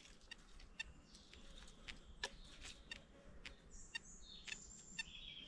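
XP Deus 1 metal detector sounding faint, high-pitched target tones through its headphones as the coil sweeps over a very small target, a 0.04 g watch hand, so the signal is weak. Scattered faint clicks are heard with it.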